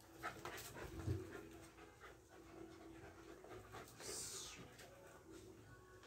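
Black mixed-breed dog panting faintly, out of breath from bite-and-tug work.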